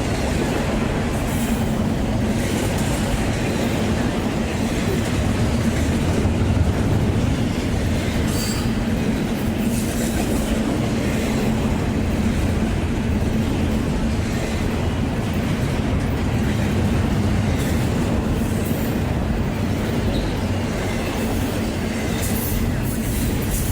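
Freight train rolling past at steady speed: a continuous rumble of steel wheels on the rails, with clicks from the wheels and faint squeals.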